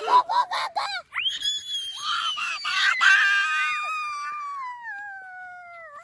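Children screaming in play: a few short high yelps, then one long high scream that slides slowly down in pitch, with a second voice crossing it briefly in the middle.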